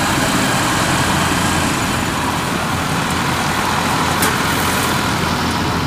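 Engine of a tracked rice-harvesting machine running steadily, with one brief click about four seconds in.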